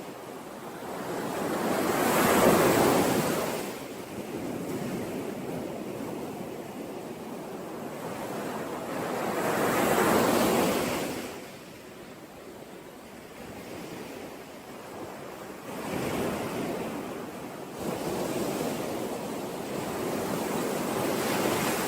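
Sea waves breaking and washing up the shore, swelling and fading in turn: two big waves about two and ten seconds in, then several smaller ones.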